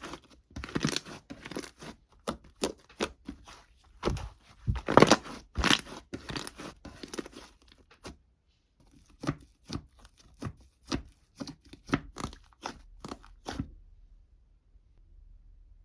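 A rapid series of sharp crackles and rustles, like crinkly material being handled or torn. It stops abruptly near the end.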